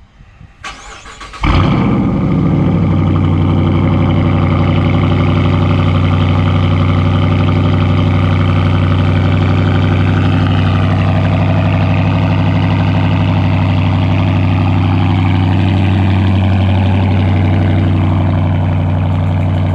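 2019 Dodge Charger R/T's Hemi V8 cold-starting after sitting four days: the starter cranks briefly, the engine catches about a second and a half in with a rev flare, then settles into a loud, steady fast idle.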